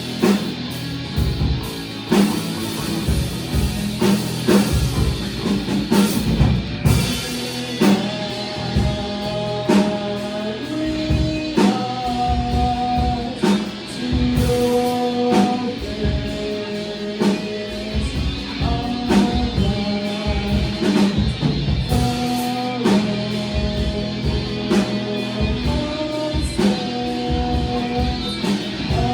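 A rock band playing live: guitars holding repeated chord figures over a busy drum kit, with some singing.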